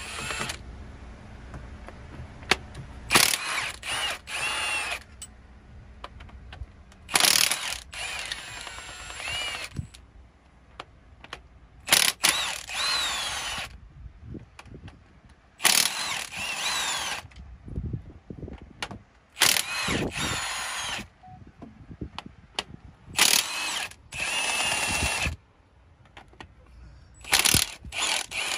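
Milwaukee M18 cordless impact wrench hammering in about eight bursts of one to two seconds each, with short pauses between them, as it spins out the Jake brake housing bolts on a Detroit Diesel Series 60 engine.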